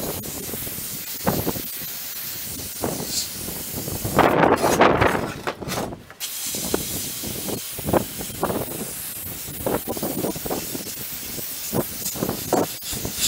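Sandblaster nozzle hissing steadily as it blasts abrasive onto an old 1966 Mustang sheet-metal part. The blasting stops briefly partway through and then starts again. Irregular low gusts of wind hit the microphone throughout, strongest just before the pause.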